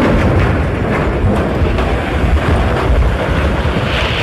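Landslide: rock and debris crashing down a mountainside in a steady, loud, low rumble.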